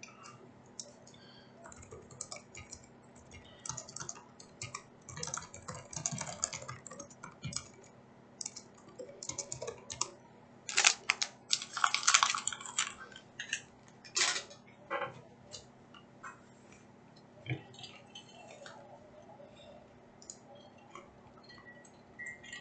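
Typing on a computer keyboard: irregular runs of key clicks, with the busiest and loudest flurry about halfway through.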